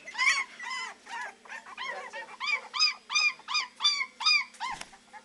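Three-week-old beagle puppies crying in a fast run of short, high yelps that rise and fall in pitch, about three a second: the pups' first attempts at baying. The cries stop shortly before the end, and a soft thump follows.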